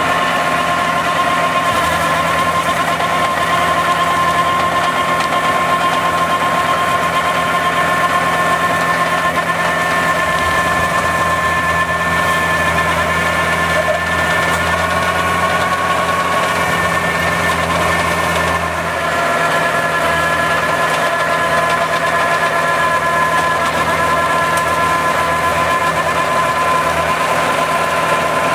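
Compact tractor's engine running under load, driving a Skorpion forestry mulcher as it shreds brush and saplings, with a steady high whine over the engine noise. Loudness dips briefly about two-thirds of the way through.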